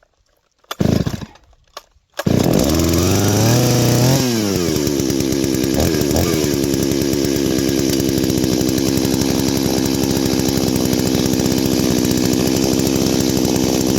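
Brand-new Holzfforma G388 72cc two-stroke chainsaw restarted off the choke: a short rattle of the starter about a second in, then the engine catches about two seconds in. Its revs climb high for a couple of seconds, drop back to a steady idle, blip once briefly, and settle into a warm-up idle while it is being run in.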